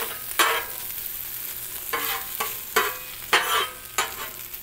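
Leftover chicken heating in olive oil on a Blackstone flat-top griddle, with a faint steady sizzle. A metal spatula scrapes across the steel griddle about six times as the pieces are pushed around.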